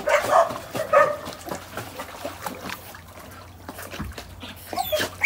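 A dog barking, twice near the start and again near the end, over water splashing from dogs swimming in a pool.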